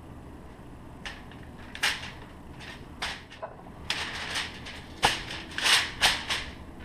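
Hand rubbing olive oil over a rib roast on a sheet of aluminium foil: irregular crinkling and rustling of the foil under the hand and meat, in short bursts that grow loudest about five to six and a half seconds in.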